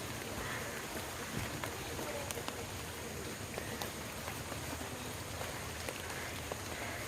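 Steady patter of water with small scattered drips and clicks.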